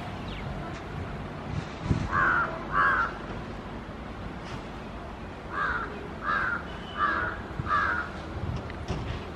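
Crow cawing: two harsh caws, then a run of four more a few seconds later, over low steady background noise.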